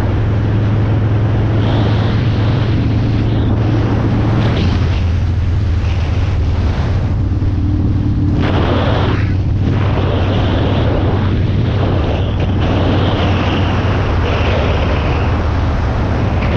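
1999 Harley-Davidson Sportster V-twin engine running under way, with heavy wind noise on the microphone. A metal-on-metal noise comes and goes with road speed and is absent at idle. The owner cannot identify it and has already checked that the primary chain is tensioned.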